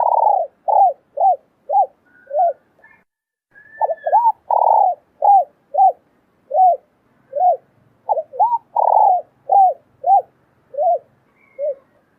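Spotted doves cooing: three phrases, each opening with two quick short coos, swelling into one long fuller coo, then trailing off in a run of shorter coos. Faint higher chirps sound in the gaps.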